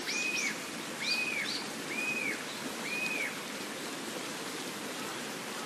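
A bird whistles the same short rising-and-falling note four times, about once a second, then stops. Under it runs a steady hiss of rain.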